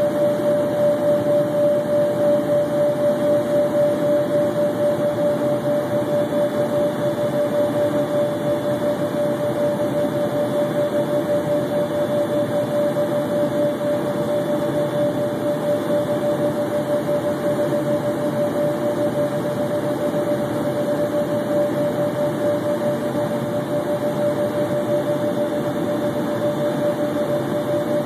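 Steady in-flight cabin noise of an Embraer Phenom 100 light jet: an even rush of airflow and engine noise with one strong, steady hum that wavers slightly in loudness.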